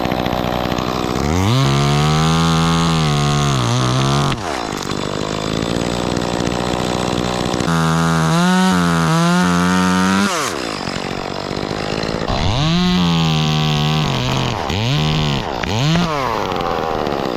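Two-stroke chainsaw running, revved up about five times. Each surge climbs, holds, then sags and drops back, and the last few are shorter. It is used to cut off limbs high in a dead tree.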